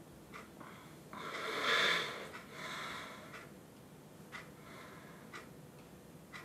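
A person's loud, raspy breath about a second in, followed by a weaker one, with a clock ticking about once a second.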